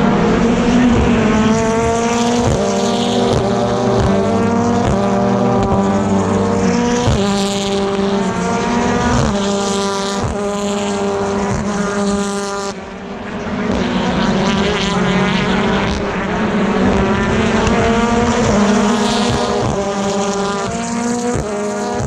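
BTCC touring cars' turbocharged 2.0-litre four-cylinder engines at full throttle, several cars one after another, the pitch climbing and dropping back at each upshift as they accelerate away. A brief lull about 13 s in, then the next cars come through.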